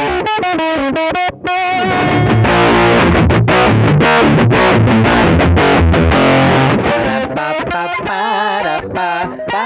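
Electric guitar through a Superfuzz-type fuzz pedal and a cabinet simulator, recorded direct: wavering single notes, then a dense stretch of heavily distorted low chords about two seconds in, then bent, wavering lead notes near the end.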